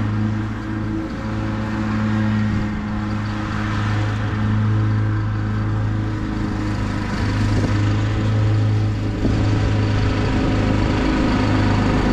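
Husqvarna YTH21K42 riding lawn mower running steadily while mowing, its engine hum growing a little louder near the end as it comes closer.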